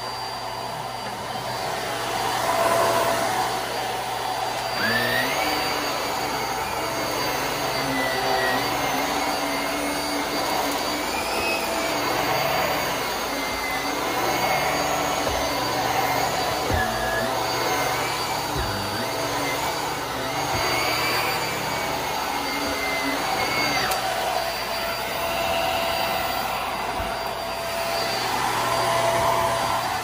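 HART Pet Glide vacuum cleaner running steadily, its motor pitch rising and falling slightly every few seconds.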